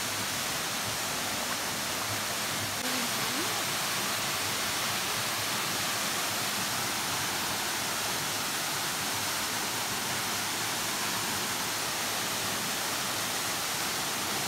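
Steady rushing of water flowing in a shallow forest stream.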